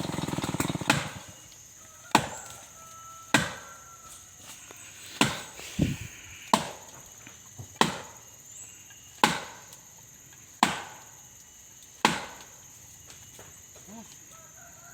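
A chainsaw's engine sound dies away about a second in. It is followed by about ten sharp, separate blows on wood, one every second or so, each ringing briefly.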